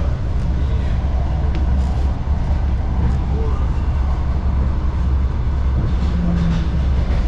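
Suburban electric train running, heard from inside the carriage: a steady, heavy low rumble from the running gear and rails.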